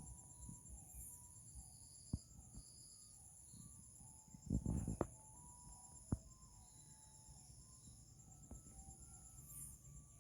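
Steady high-pitched trilling of insects in the background, with faint short bird chirps. A few sharp knocks, the loudest a brief low thud-like burst about halfway through.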